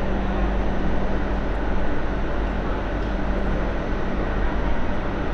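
Steady hum and rumble inside an MTR Light Rail Phase III car standing at a stop, its onboard equipment running; the hum drops out for about a second and a half near the middle.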